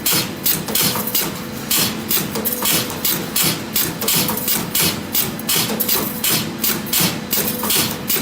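Hammering, repeated even strikes at about three a second.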